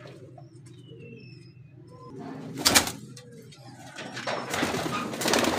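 Domestic pigeons cooing low and steadily in a loft. A loud brief rustle comes about halfway through, and a longer stretch of rustling noise near the end.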